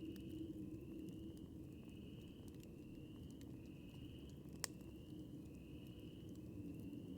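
Campfire crackling faintly, with scattered small snaps and one sharp pop a little past halfway. Over it an insect calls steadily in short, drawn-out notes, a little more than one a second.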